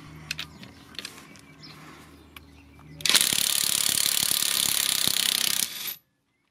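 After a few faint clicks, a Parkside X20V cordless impact wrench set to its 300 Nm level hammers on a car wheel nut for about two and a half seconds, with a loud rapid rattle that stops abruptly.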